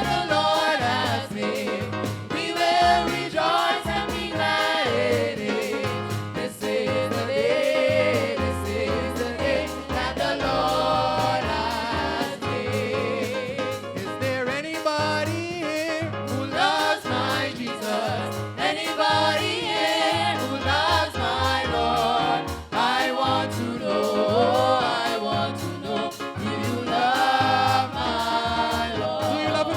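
A praise team singing a gospel song of praise with instrumental accompaniment: several voices together, continuous and steady.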